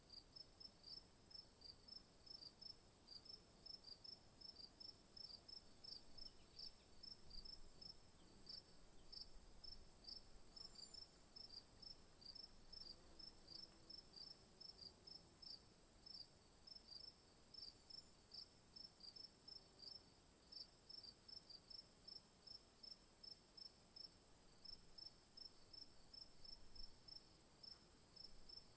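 Crickets chirping faintly in an afternoon ambience: regular short chirps about twice a second over a steady, continuous high trill.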